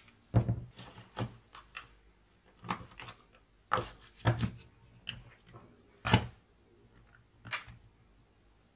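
Hard plastic housing of a cordless drill knocking and clicking as it is handled and pried apart with a flat screwdriver: a dozen or so irregular clicks and knocks with short pauses between.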